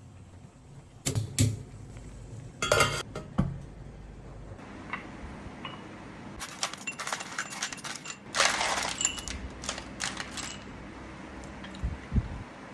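Kitchen clatter: dishes and utensils clinking and knocking now and then, with a short rattling burst about two-thirds of the way through.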